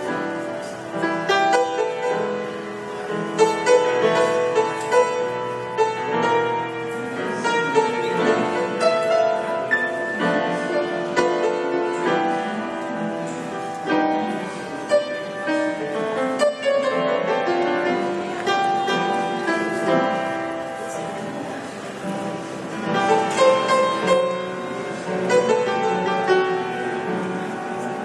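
Grand piano played solo, noodling: a continuous flowing passage of chords and melody with notes struck throughout.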